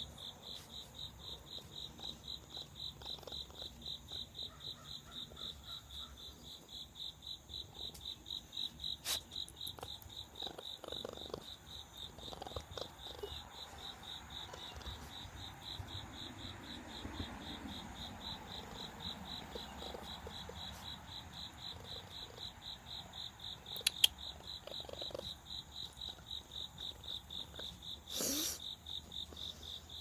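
Continuous high chirping from a small calling animal, pulsing about three times a second. A few faint knocks, a sharp click about two-thirds of the way through, and a brief rustle near the end.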